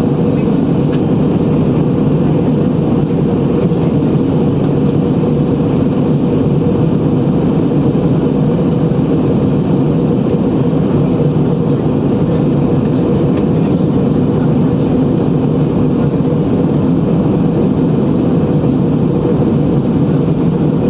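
Aircraft cabin noise inside a passenger aeroplane: steady engine and airflow noise with a constant hum, unbroken throughout.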